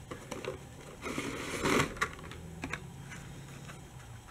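Hot Wheels blister-pack cards and the cardboard box being handled as carded cars are taken out: light clicks and taps of plastic and card, with a louder rustle about a second in.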